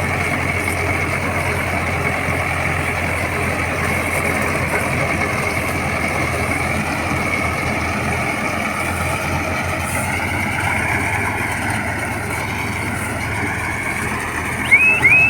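Mahindra Yuvo Tech+ 475 DI tractor's diesel engine running steadily while driving a Bullagro round baler. The baler's machinery runs along with it. Near the end there are a few short, high squeaks.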